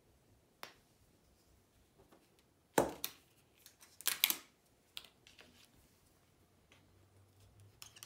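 Art tools handled on a worktable: a single knock about three seconds in, a short scraping rustle about a second later, and a few light clicks.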